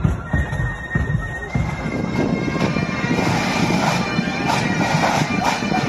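Marching band playing: a steady drumbeat under sustained wind-instrument notes, with an abrupt change to a different recording of band music about two seconds in.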